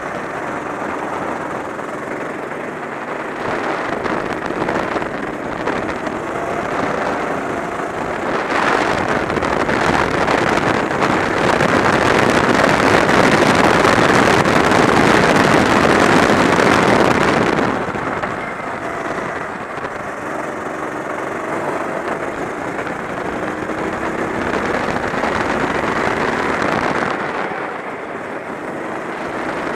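Kart engine running hard, heard from onboard, its pitch rising and falling with the throttle through the corners. A louder rushing stretch in the middle lasts about eight seconds, on the straight.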